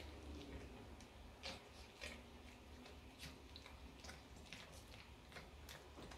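Faint, irregular clicks and smacks of a Chihuahua's mouth as it chews, about a dozen scattered unevenly over a few seconds.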